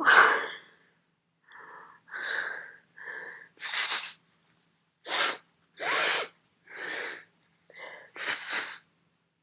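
The end of a loud sneeze, then about nine short, noisy, wheezing breaths, drawn in and pushed out in gasps, as a person with a heavy cold recovers between sneezes.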